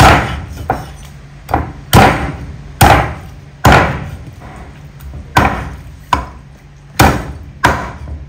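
Rectangular meat cleaver chopping bone-in raw chicken on a thick round wooden chopping block: about ten hard, irregularly spaced chops, each with a short ringing decay.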